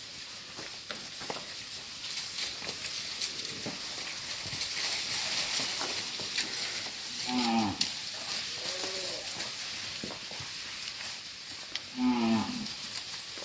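Cattle mooing: a loud moo about halfway through, a softer one just after, and another near the end, over a steady high hiss.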